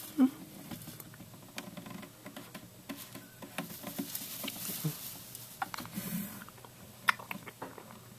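Russian dwarf hamster scrabbling and rustling in its cage bedding: scattered light scratches and clicks, with a sharp knock about a quarter second in and another about seven seconds in.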